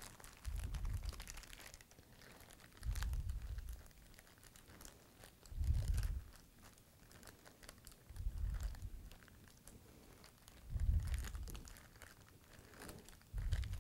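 Plastic zip-top bag crinkling as gloved hands squeeze and knead polyvinyl alcohol and sodium borate solution together into slime, with a dull thump about every two and a half seconds.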